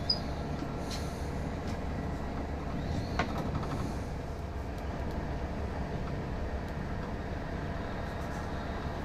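Steady low rumble of vehicles, with a brief high squeak just after the start and a short sharp click about three seconds in.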